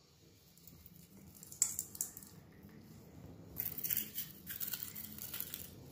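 Faint crinkling and rustling with a few light clicks: kitchen things being handled at the stove, such as salt being taken up and added.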